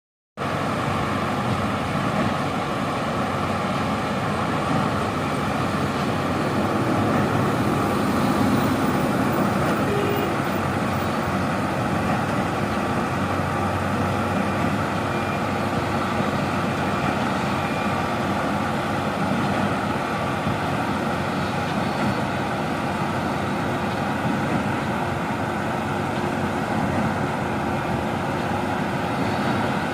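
Heavy diesel truck engine running steadily, with a steady hum and a few held tones. This is most likely the power unit of a Schwing S 36 X truck-mounted boom concrete pump.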